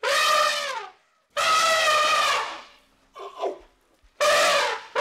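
Elephant trumpeting: three loud, brassy calls of about a second each, the first dropping in pitch at its end, with a shorter, quieter call between the second and the third.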